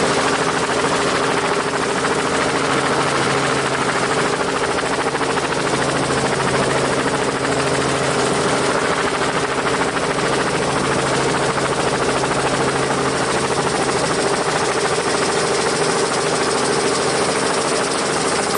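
Small electric motor and gears of a battery-powered toy vehicle running steadily, a constant whirring buzz with a steady hum under it.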